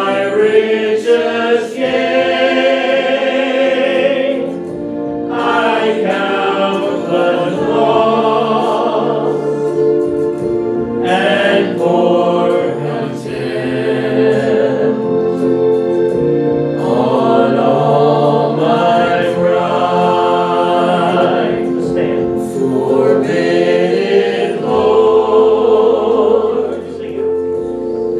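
A group of voices singing a worship song together, in long held phrases with short breaks between lines.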